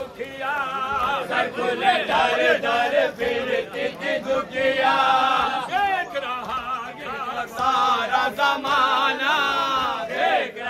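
A group of men chanting a mourning lament (nauha) together, loud, with the pitch wavering up and down through long sung lines.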